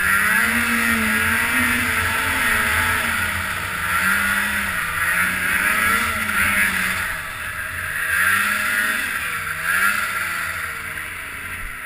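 Snowmobile engine running at high revs, its pitch rising and falling several times as the throttle is worked through deep powder, with a steady hiss of snow and track underneath.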